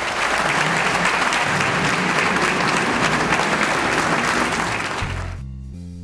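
Large audience applauding, a dense steady clapping that fades out about five seconds in. Music with a steady bass line then takes over.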